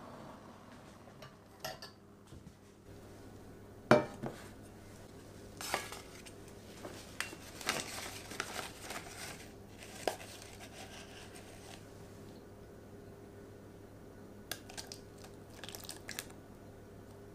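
Metal cookware being handled. There is one sharp clank about four seconds in, then scattered light clinks while a sheet of baking paper crinkles as it is fitted into a round metal cake tin.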